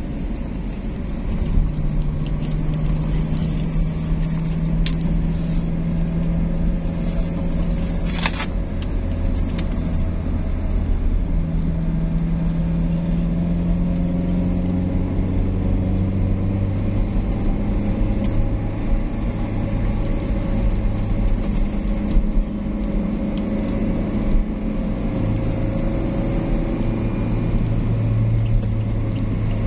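Car engine droning with tyre and road rumble, heard from inside the cabin while driving on a highway; the engine tone climbs slowly in pitch as the car gathers speed. A brief hiss comes about eight seconds in.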